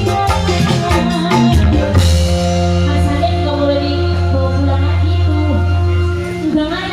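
Background music with a voice singing: drums and percussion for the first two seconds, then a held bass and melody that fade out near the end.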